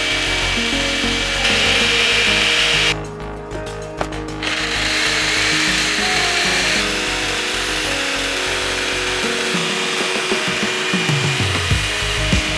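Band saw cutting through the aluminum sprues of small cast figures, running steadily with a short break about three seconds in. Background music plays underneath.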